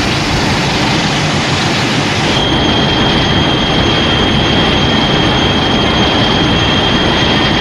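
Shin Godzilla monster sound effect: a long, loud, harsh rushing screech at an even level, with a steady high whine joining it about two and a half seconds in.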